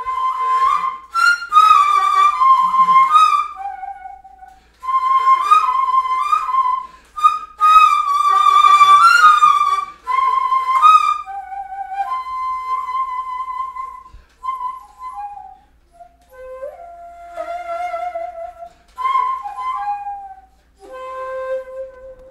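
Background music: a solo flute playing a slow melody in phrases, with short pauses between them.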